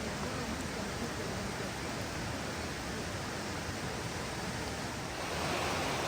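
Steady rushing of a waterfall's falling water, a little louder from about five seconds in.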